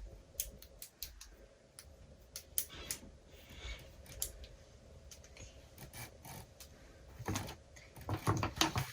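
Plastic Wacky Track snap-and-click fidget chains clicking as their links are bent and turned: a string of irregular sharp clicks, louder and closer together near the end.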